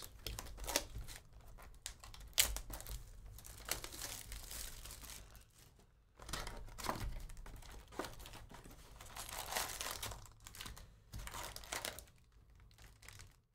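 Plastic wrapping crinkling and tearing as a hobby box of baseball cards is unwrapped and opened and its wrapped card packs are handled. Irregular rustles and sharp crackles, with a short pause about six seconds in.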